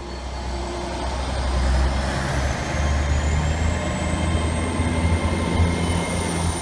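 Model railway locomotive running along the layout: a thin whine rises in pitch over the first few seconds and then holds steady, over a low steady rumble.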